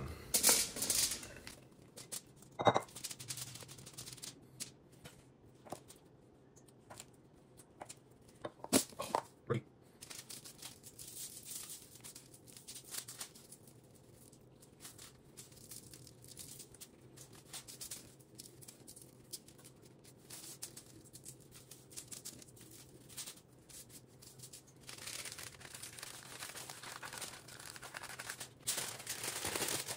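Sheet of aluminum foil crinkling and rustling as it is handled and folded shut into a cooking packet, busiest near the end. A few sharp knocks in the first ten seconds.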